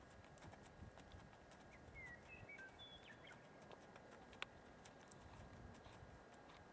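Faint, soft hoofbeats of a horse walking on arena sand, with a few short bird chirps about two to three seconds in.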